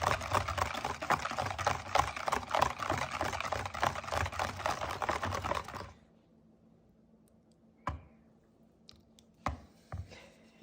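A spoon stirring thick strained yogurt in a bowl: a dense run of quick clicks and squelches that stops about six seconds in. A few separate clicks follow near the end.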